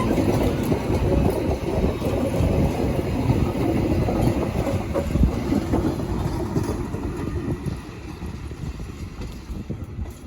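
A train running past on the rails, its rumble loud at first and dying away over the last few seconds as it moves off.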